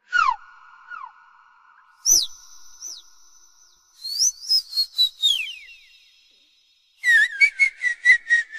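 High whistling of the kind meant to excite a dog. A falling swoop opens it, two higher falling swoops come about two seconds in, and quick runs of chirps, about five a second, follow around four and seven seconds in. Each note leaves a ringing tail.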